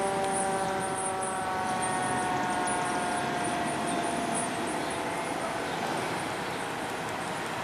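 A fire engine's Federal Q mechanical siren winding down, its pitch falling slowly and fading out over about five seconds, over the noise of passing traffic.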